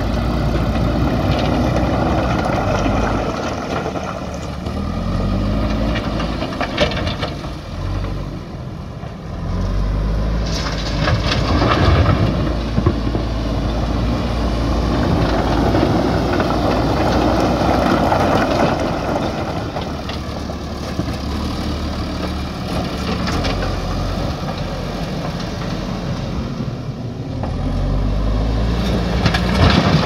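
JCB 3DX backhoe loader's diesel engine running under load, its revs rising and falling as the front bucket pushes into a pile of stones, with a few sharp knocks of stones clattering against the bucket.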